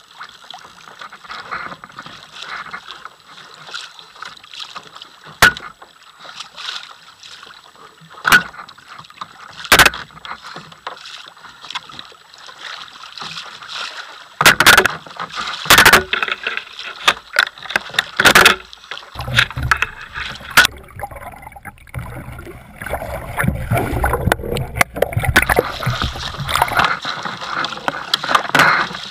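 Choppy sea sloshing and slapping against a kayak's hull, with several sharp knocks now and then. In the second half a low rumble of wind on the microphone comes in.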